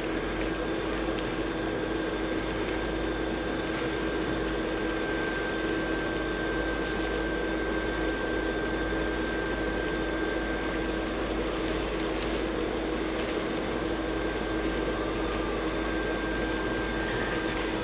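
Small electric blower fan of an airblown inflatable running steadily as it inflates the decoration: an even hum with a constant whine.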